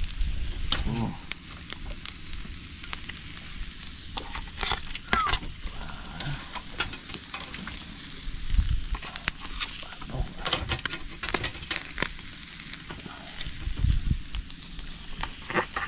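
Fish grilling over charcoal embers: steady sizzling with many scattered crackles and pops.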